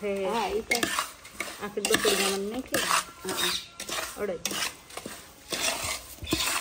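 Steel spoon stirring and scraping a thick adadiya dough mixture round a large metal pot, with repeated scrapes and clinks of metal on metal.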